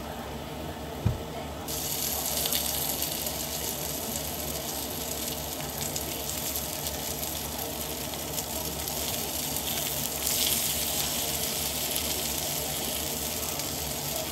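A single knock, then about two seconds in a kitchen tap opens and water runs steadily into the sink, a little stronger later on.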